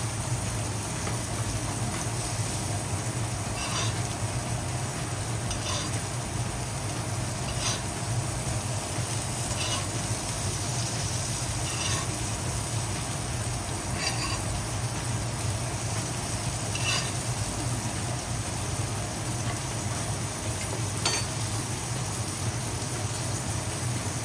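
Filet mignon searing in fat in a stainless frying pan, with a steady sizzle. A metal spoon scrapes or clinks against the pan every couple of seconds as the steak is basted.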